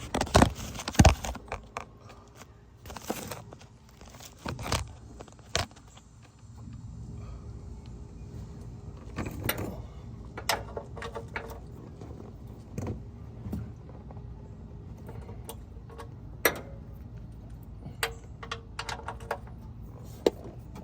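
Ratchet and socket clicking and metal tools clinking in short scattered bursts while the 16 mm oil pan drain plug is worked loose.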